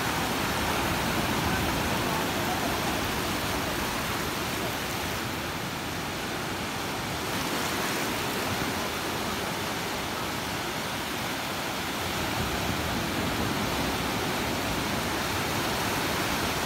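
Sea surf breaking and washing up a beach, a steady rush of water noise.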